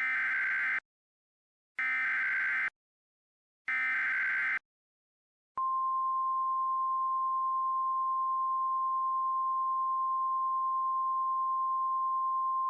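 Emergency Alert System header: three short bursts of SAME digital data tones, each just under a second long and about two seconds apart. About a second after the last burst comes a steady single-pitched 1050 Hz warning alarm tone, which holds without a break. Together they mark the start of a new flash flood emergency alert.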